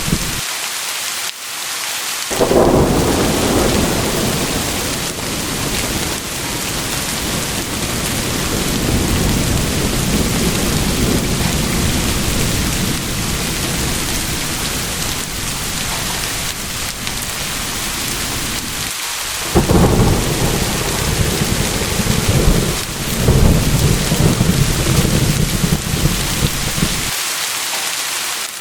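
Steady heavy rain with rolling thunder: a long deep rumble starts suddenly a couple of seconds in and runs most of the way through, then a second peal cracks in about two-thirds through and cuts off near the end, leaving the rain hiss alone.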